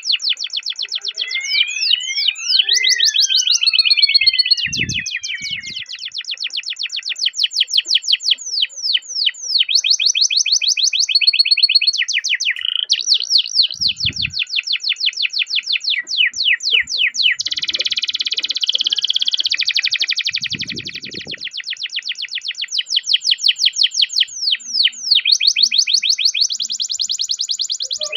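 Domestic canary singing a long rolling song: rapid trills of quickly repeated high notes, with a few falling whistled notes about two seconds in, a brief pause near the middle and a buzzy rattling roll a little later.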